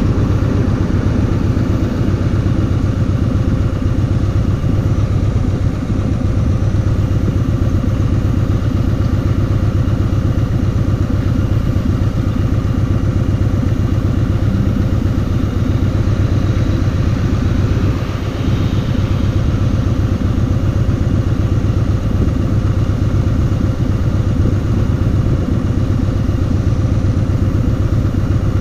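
Kawasaki VN2000's big V-twin engine running steadily under way at a constant pace.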